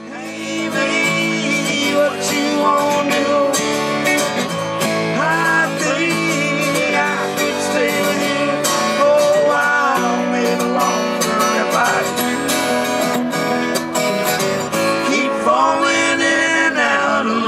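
Live music: a strummed acoustic guitar and an electric guitar, with a man singing in places.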